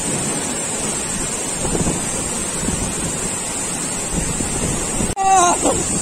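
Waterfall rushing steadily, with wind buffeting the microphone. About five seconds in, the sound cuts out for an instant and a short burst of a person's voice follows.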